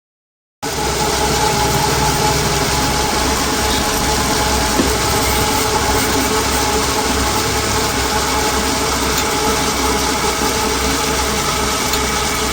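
Machinery running steadily: a constant hum with a few fixed tones under a loud, rough whirring noise. It starts abruptly about half a second in and cuts off suddenly at the end.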